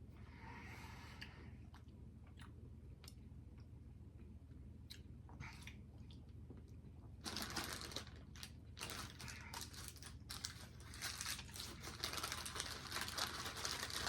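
A few faint clicks, then, about seven seconds in, a chocolate bar's wrapper crinkling and rustling close by in dense, irregular bursts.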